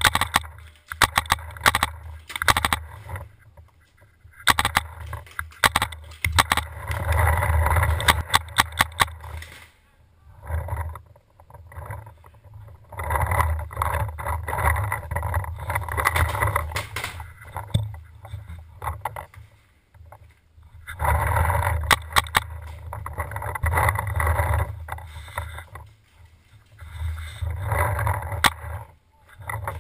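Paintball markers firing in quick strings of sharp pops, in several bursts, over a rough rumbling noise that comes and goes.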